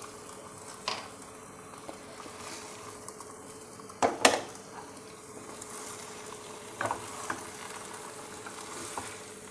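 Chicken pieces in onion-tomato-less masala sizzling steadily in oil in a nonstick pan, with a spatula knocking against the pan a few times, loudest about four seconds in, as the pieces are stirred to coat them in the masala.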